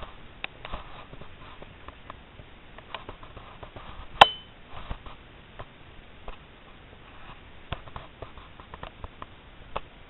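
Handling noise: scattered small clicks and knocks, with one sharp clink about four seconds in that rings briefly.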